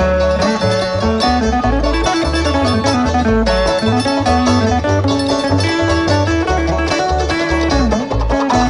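Bluegrass string band playing an instrumental passage live: fast picked banjo over guitar, with a bass line pulsing underneath.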